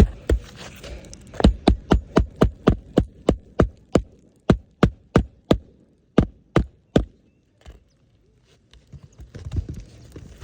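Hammer driving roofing nails into a new shingle on a roof: a fast run of sharp strikes, about three or four a second, that stops about seven seconds in, with one last blow shortly after.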